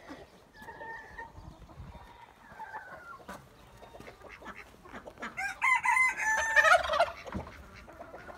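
A rooster crows once, loudly, about five seconds in, the call lasting nearly two seconds, after a few soft clucks from chickens.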